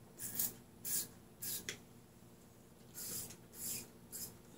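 About six short hissing squirts from a spray bottle of 91% isopropyl alcohol being sprayed into cups of fluid acrylic paint.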